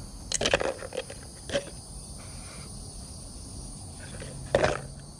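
Small metal parts clinking as they are dropped into a plastic tub: a few sharp clicks about half a second in, another around a second and a half, and a louder clatter near the end. A steady insect drone runs underneath.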